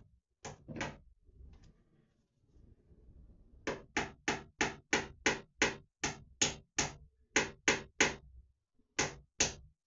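Hammer tapping small clips into the wall to hold a string of lights: two blows, a pause of about three seconds, then a steady run of about fourteen quick blows, some three a second, and two more near the end.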